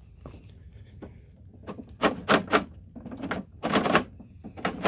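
Discharge chute of a Snapper XD 82-volt battery snowblower being swiveled with its hand crank. After a quiet start it gives a run of clicks and clunks, about two seconds in.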